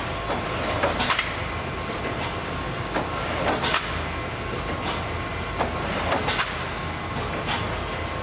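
Industrial machinery running: a steady mechanical rumble with short, sharp bursts of noise every second or two at an uneven pace.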